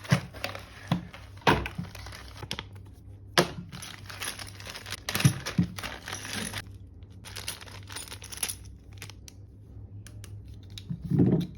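Packaging being handled while unboxing a CPU cooler: crinkling and rustling of wrapping, with several sharp knocks and taps, and a dull thump near the end.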